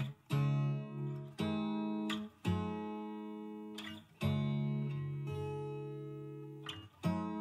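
Background music: a chord strummed about every one to two seconds, each left to ring out before the next.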